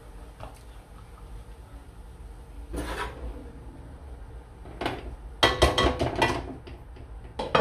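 A serving spoon scraping and knocking against an aluminium cooking pot of mince in short bursts: one about three seconds in, a busy cluster between five and six and a half seconds, and another near the end.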